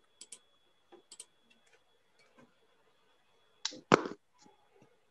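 Scattered soft clicks, typical of a computer mouse, over a faint steady high whine. A short louder noise comes just before four seconds in.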